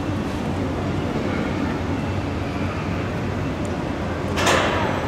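Overhead travelling crane running as it carries a suspended locomotive body, a steady low hum. A brief, louder hiss cuts in about four and a half seconds in.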